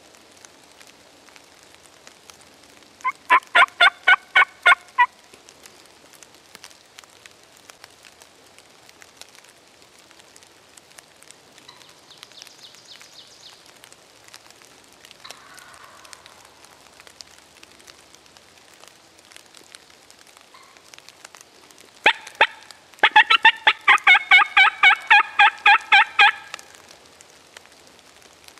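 Wild turkey yelping: two loud runs of evenly spaced yelps, about five a second, the first lasting about two seconds and the second, about three seconds long, coming near the end after two single yelps.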